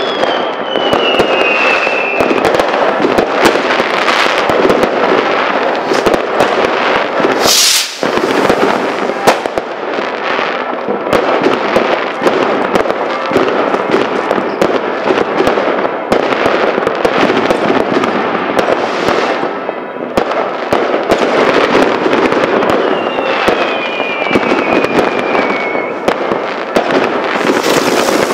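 Many fireworks and firecrackers going off at once: a dense, continuous crackle of bangs. Two whistles glide down in pitch, one near the start and one near the end, and a brief high hiss comes about seven seconds in.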